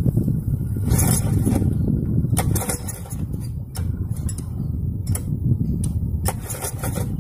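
Small diesel water-pump engine converted to run on LPG being turned over by hand to start: a continuous low mechanical rumble with sharp clicks every second or so. It has not yet caught, with too much gas probably flowing.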